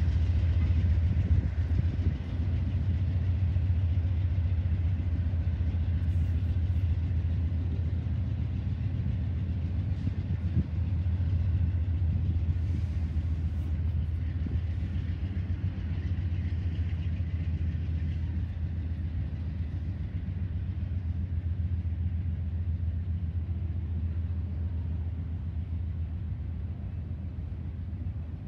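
Freight train of autorack cars rolling past with a steady low rumble, slowly fading toward the end.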